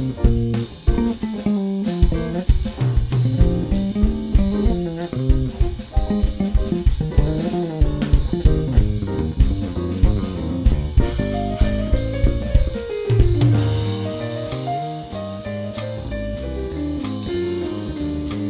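Instrumental jazz: a plucked melody line over bass and drums with a steady beat, with a phrase stepping down in pitch a little after the middle.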